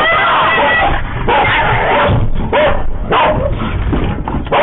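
Dogs barking and yelping, loud and nearly continuous, harsh through a security camera's microphone.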